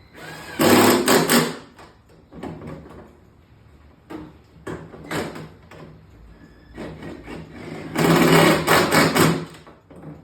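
Handling noise during an unboxing: two loud bursts of rustling and clattering, about half a second in and again about eight seconds in, with smaller knocks and rustles between.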